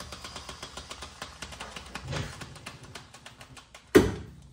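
Two-post car hoist lowering: a steady hiss with a fast, regular ticking that fades out, then a single loud thud about four seconds in.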